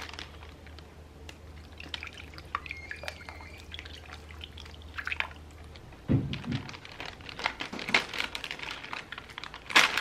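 Thick barbecue sauce pouring and dripping from an upturned bottle into a plastic zip-top bag of raw chicken. A dull thump comes about six seconds in, followed by plastic bag rustling as the bag is handled and closed.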